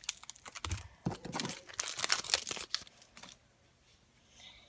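A foil trading-card pack wrapper being crinkled and torn open, a dense crackle of short tears and rustles that stops about three seconds in, with a faint rustle near the end.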